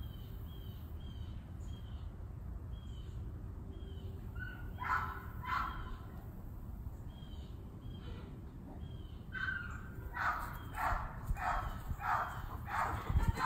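Animal calls over a steady low rumble: a small bird chirps in a quick repeated run early on. Two loud harsh calls come about five seconds in, and a run of about seven calls, half a second apart, comes in the last few seconds.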